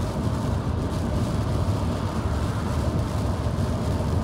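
Steady road noise of a car cruising on the highway: a low rumble from tyres and engine under an even hiss.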